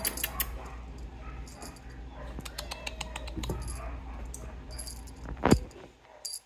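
Light jingling and clicking from a dangled feather cat toy, over a steady low hum, with one sharp knock about five and a half seconds in.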